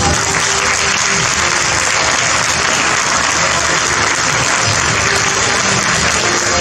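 An audience applauding: dense, steady clapping that starts at once and holds, with faint music underneath.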